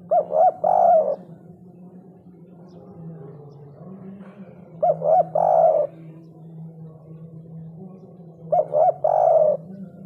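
Spotted dove cooing its three-note 'kuk 3' phrase three times, about every four seconds: two short notes and then a longer one.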